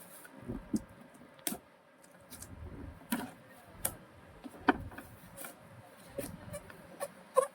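Irregular clicks, taps and rustles of hands handling packaging and a plastic toy RC car during unboxing. The sharpest clicks come about one and a half, three, four and a half, and seven and a half seconds in.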